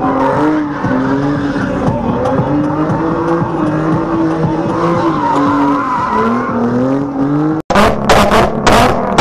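A drifting car's engine held at high revs, its pitch wavering up and down, with tires squealing and skidding throughout. After an abrupt cut near the end comes a rapid run of sharp exhaust bangs, backfire pops that shoot flames from a coupe's tailpipe.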